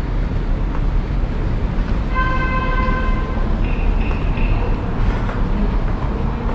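Steady city traffic noise from the street above, heavy in the low end. About two seconds in, a steady pitched tone sounds for about a second and a half, followed by a shorter, higher tone.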